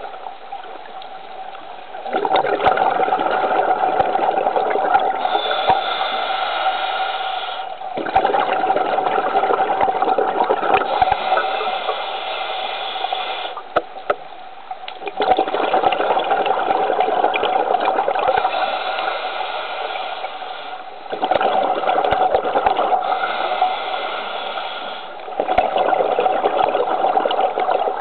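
Scuba diver's breathing through a regulator underwater: long rushing bursts of exhaled bubbles that come back about every five to six seconds, with quieter gaps between.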